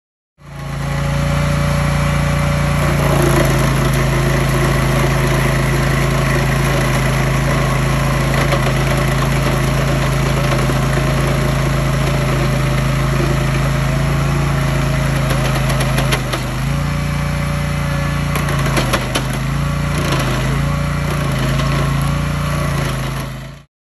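Petrol engine of a Toro tracked stump grinder running steadily at high speed while its cutting wheel grinds a tree stump. In the last third the engine note dips a few times under load, with a few sharp ticks.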